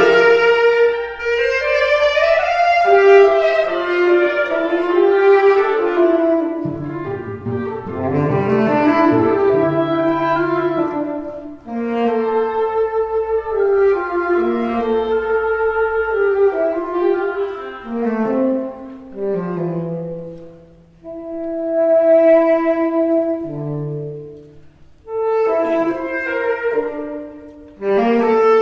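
Tenor saxophone playing sustained melodic lines in a contemporary chamber concerto, accompanied by a small ensemble of strings and winds. The texture thins out twice in the second half before the ensemble comes back in loudly at the very end.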